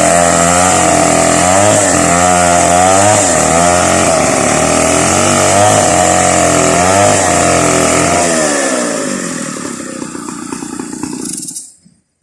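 Two-stroke chainsaw cutting through coconut trunk at full throttle, its pitch dipping and recovering again and again as the chain bites. About 8 seconds in the throttle is released and it drops to idle, then the sound cuts off suddenly near the end.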